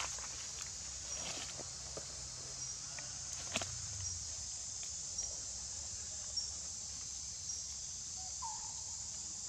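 Steady chorus of insects: a high, shrill drone with a faint chirp repeating about once a second. A sharp click comes about three and a half seconds in, and a short call near the end.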